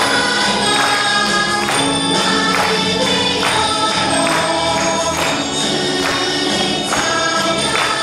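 Upbeat Christian praise song: a group of voices singing over music with a steady beat, a sharp percussion hit a little under once a second.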